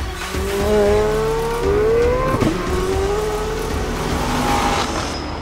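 Corvette Z06's LT6 flat-plane-crank V8 accelerating, its pitch climbing, dropping sharply about two and a half seconds in, then climbing again before it fades near the end.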